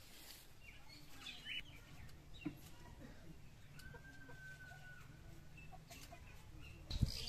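Domestic chickens clucking faintly, with short calls and one longer held call partway through. A louder thump comes near the end.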